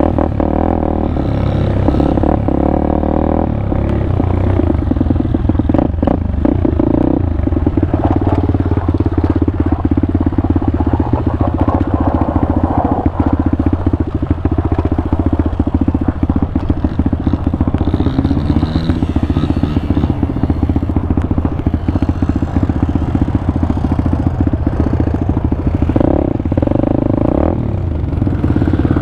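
Pitster Pro 190 pit bike's single-cylinder four-stroke engine running under load on an off-road ride, its note holding steady with small changes in engine speed.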